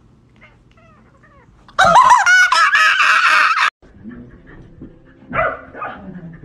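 An orange domestic cat meows loudly in one long, warbling meow of about two seconds that cuts off abruptly, its reply to "I love you" heard as "love you too". Then, more quietly, a dog gives a couple of short yips.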